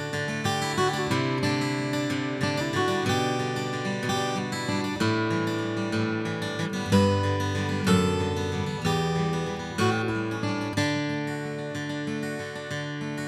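Background music: a strummed and plucked acoustic guitar.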